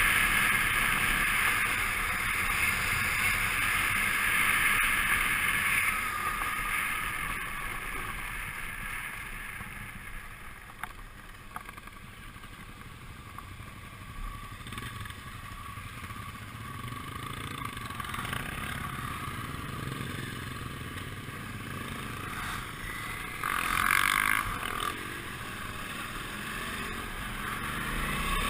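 Suzuki V-Strom 650 motorcycle riding along, heard as wind rush and engine noise on a helmet-mounted camera. The sound fades as the bike slows to a near stop around the middle, with a brief louder rush about three-quarters of the way through, and builds again near the end as it pulls away.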